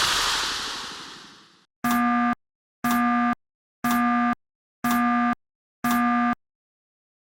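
A hissing noise fades away, then a synthesized electronic beep sounds five times, about once a second, each beep half a second long on a steady buzzy tone.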